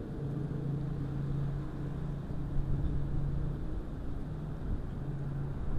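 An engine running steadily out of view: a low hum with a few overtones that holds one pitch throughout, over a low rumble.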